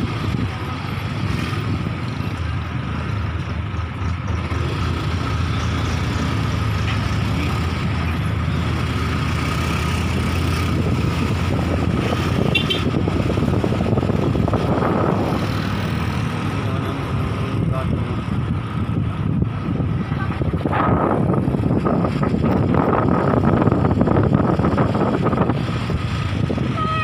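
Small motorcycle engine running steadily during a ride, with road and wind noise, a low continuous hum and a thin steady whine on top; the sound swells a little about halfway through and again near the end.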